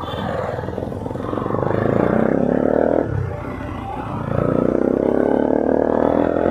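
Bajaj Pulsar NS200's single-cylinder engine running through an Akrapovic-style slip-on exhaust with its dB killer fitted, pulling under way. The revs climb, fall away about three seconds in, then climb again.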